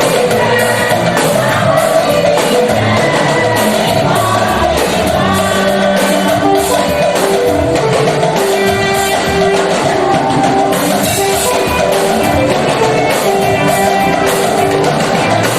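Choir singing with a live band: steady drum beat and held instrumental notes, loud throughout.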